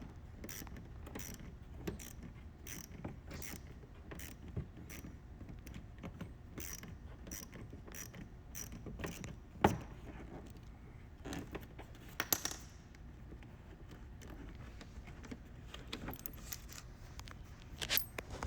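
Hand tools clicking steadily as fasteners are worked loose on a car's rear bumper, with a sharp knock about ten seconds in and a few louder clicks near the end.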